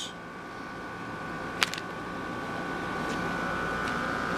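Steady background hum and hiss with a faint, steady high whine, slowly getting a little louder, and a single sharp click about one and a half seconds in.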